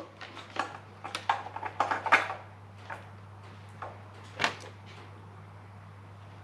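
Wiring-loom plug and wires being handled at an idle speed control valve: a quick run of small plastic clicks and knocks over the first two seconds or so, then a few single clicks, over a steady low hum.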